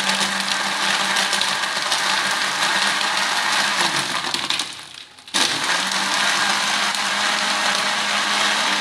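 Electric countertop blender running at full speed, its blades crushing ice cubes in a milky drink with a steady motor hum and a rattling crackle of ice. The motor winds down about four seconds in and starts up again about a second later.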